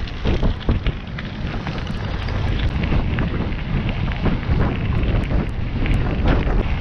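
Wind noise rumbling on the microphone of a camera riding on a moving bicycle, with the tyres crunching and ticking over a gravel trail.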